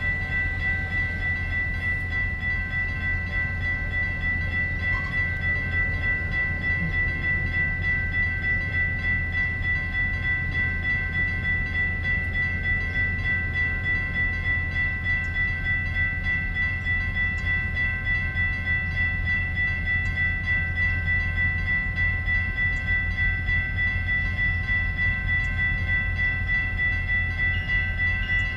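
Railroad grade-crossing warning bell ringing rapidly and steadily while the crossing signals flash, over a steady low rumble.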